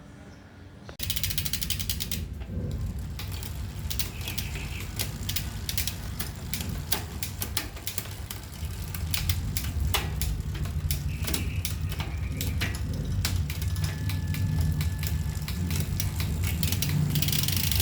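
Bicycle drivetrain clicking and ticking over a steady low rumble, starting about a second in and growing louder in the second half.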